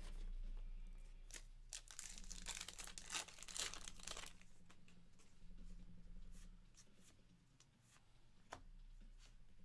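A baseball card pack wrapper being torn open and crinkled, in a cluster of rasping tears from about one and a half to four seconds in. It is followed by a few soft clicks of the cards being handled.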